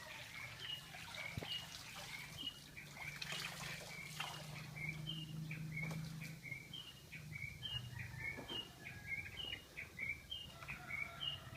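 A bird calling over and over, a short high note dropping to a lower one, about once a second, a call heard by locals as "Du-ter-te, Du-ter-te".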